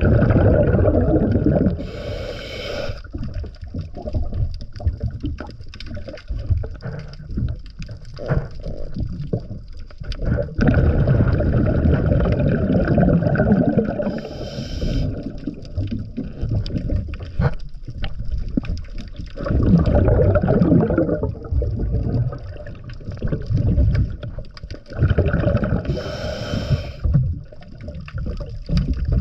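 Scuba diver breathing through a regulator underwater: a long bubbling rush of exhaled air every several seconds, most followed by a short hiss as the diver breathes in.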